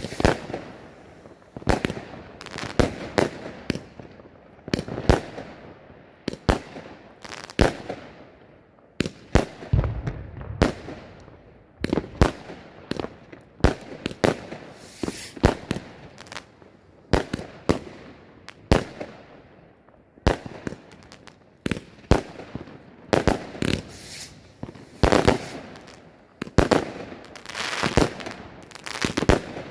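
Pinto 'Sydney' compound firework cake (188 shots, 25–30 mm calibre) firing a continuous sequence of shots. Sharp bangs of launches and aerial bursts come about one or two a second.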